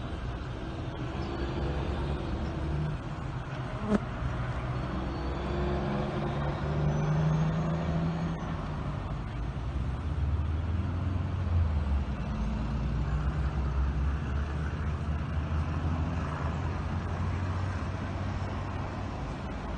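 Road traffic: motor vehicle engines running and passing, a steady low rumble whose engine note rises and falls. A single sharp knock about four seconds in.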